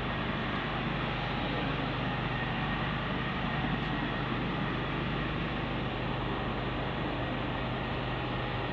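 Steady low hum with an even rushing noise, unchanging throughout.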